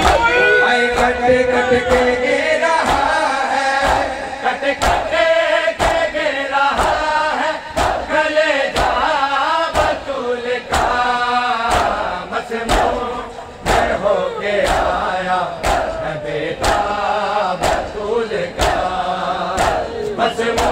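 A large group of men chanting a noha together. Their chant is punctuated by unison matam chest-beating, a steady slap about three times every two seconds.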